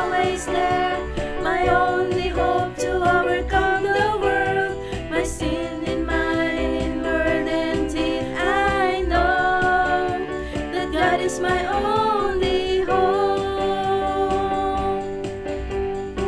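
Background music: a song with a sung vocal melody over instrumental accompaniment and a steady low beat.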